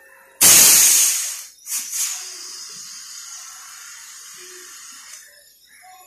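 Pressurised gas hissing out of a freezer's aluminium evaporator tubing into a cloth held over the pipe end. It comes on suddenly and loud, eases after about a second, gives two short spurts, then a lower steady hiss that stops about five seconds in. The blast is flushing old oil out of the tubing.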